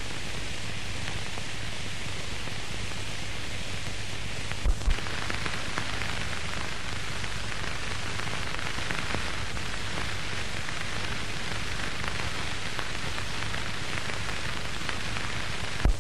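Steady hiss and crackle of an old film soundtrack with a faint low hum, broken by two short low thumps about five seconds in.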